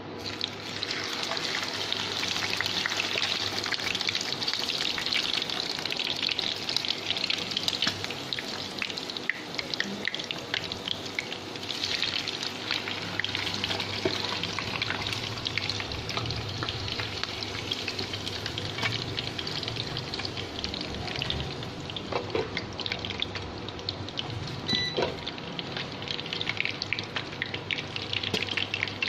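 Quail sizzling and crackling as they fry in plenty of hot oil; the sizzle jumps up sharply just after the start, then carries on steadily.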